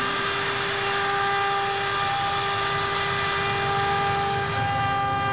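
Narrow-gauge cane-tramway steam locomotive blowing off steam: a steady hiss with a constant high, whistle-like tone over it.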